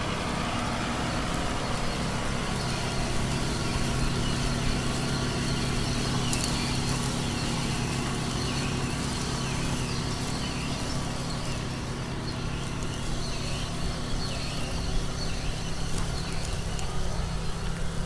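John Deere 6R tractor's diesel engine running steadily under load, pulling a Grange strip-till cultivator whose discs and legs cut through the soil and stubble.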